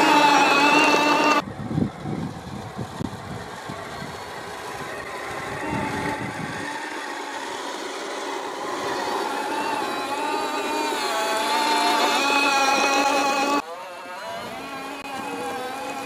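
Electric motors and gear drives of radio-controlled tracked snowcats whining, the pitch rising and falling with the throttle as they push through snow. The sound changes abruptly about a second and a half in and again near the end.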